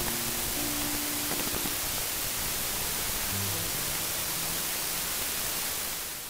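Faint music with a few slow, held notes over a steady hiss, fading out near the end.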